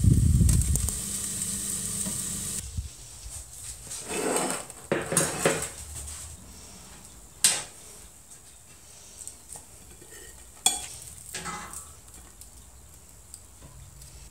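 Kippers sizzling under a hot grill, which cuts off after about two and a half seconds. Then a metal grill pan rattles and a knife scrapes and clinks against a china plate as the cooked kippers are lifted onto it, with two sharp clinks.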